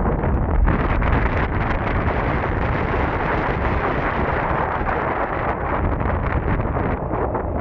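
Wind rushing and buffeting over the camera's microphone while riding an electric scooter at speed, a steady loud rumble and hiss that grows brighter about a second in.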